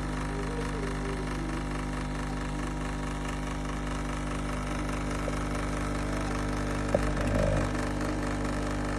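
CASABREWS espresso machine pump running with a steady, loud hum, as during brewing; a short click about seven seconds in.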